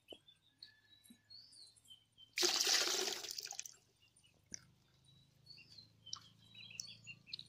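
Water splashing and sloshing in a steel pot as boiled eggs are peeled and rinsed in it: one loud swish lasting about a second, starting about two and a half seconds in, with a few light clicks. Birds chirp faintly.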